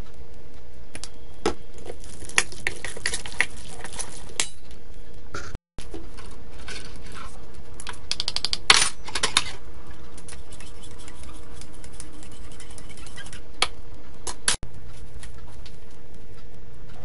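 A metal spoon clinking and scraping in a stainless steel bowl as chicken is mixed with its marinade, then a spoon clicking in a small cup while stirring starch into water, the busiest clicking about nine seconds in. Steady background noise runs underneath.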